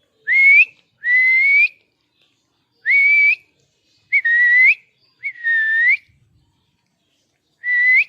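A pet parrot giving six loud whistling calls, each about half a second long: a held tone that swoops upward at the end.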